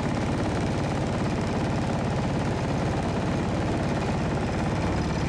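Small single-cylinder gas engine of a Mokai jet kayak running steadily at a constant speed, with a fast, even chugging pulse.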